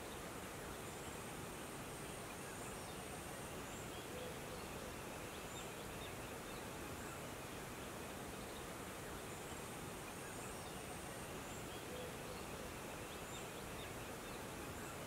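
Tropical forest ambience: a steady hiss with a thin, high insect buzz that comes in twice for a few seconds, and short high chirps every second or two.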